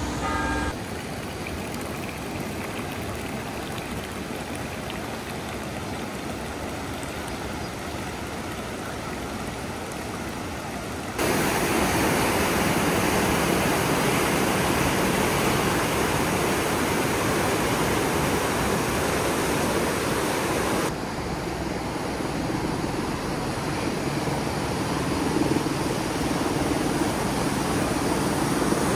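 Steady rush of flowing water, louder and brighter for about ten seconds in the middle, with sudden level changes where the shots are cut.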